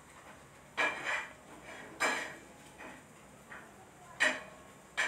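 Four short clinks or knocks, household clatter spaced a second or two apart.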